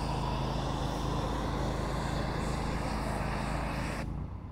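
Engine-driven pressure washer running steadily, a constant motor drone with the hiss of water spray over it, cutting off abruptly near the end.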